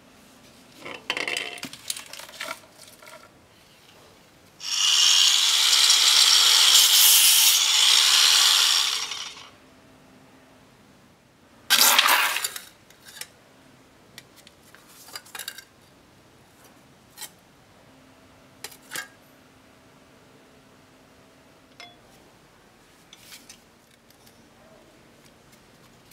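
Tools and metal parts handled on a table: scattered clicks and clinks throughout. A loud, steady hiss starts about five seconds in and lasts about four and a half seconds, and a short loud rustling burst comes near the middle.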